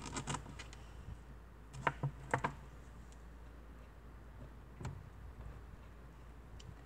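Faint handling noise: a few scattered short clicks and soft taps, a pair about two seconds in and another near five seconds, over a low steady hum.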